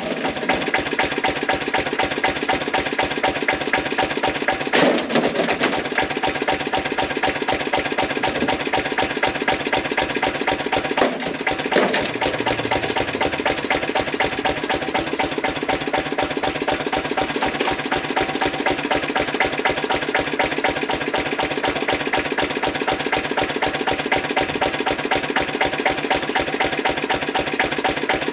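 Single-cylinder Lister CS diesel stationary engine running steadily, with a fast, even beat of its firing and valve gear. A couple of brief louder thumps come about five and twelve seconds in.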